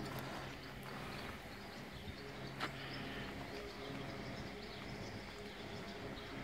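Quiet background with a faint steady low hum and one sharp click a little over two and a half seconds in.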